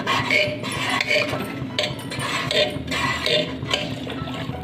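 Ladle stirring a thick curry in a pressure cooker pot, clinking and scraping against the pot's sides in repeated strokes, about two a second.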